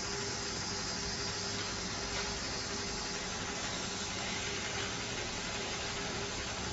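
Steady hiss of blowing air with a faint constant hum, typical of a hot-air rework station heating the chip's pins to keep the solder molten.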